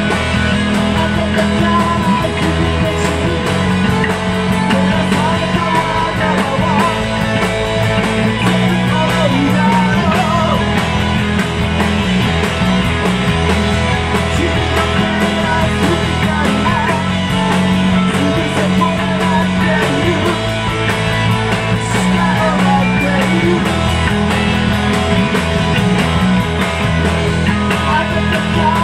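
A rock band playing live, loud and continuous, driven by guitar, with a male singer at the microphone.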